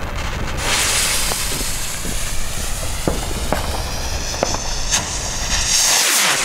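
Funke silver skyrockets launching: a loud rushing hiss starts about half a second in and trails off slowly, with scattered sharp pops through the middle. A second rocket hisses off near the end.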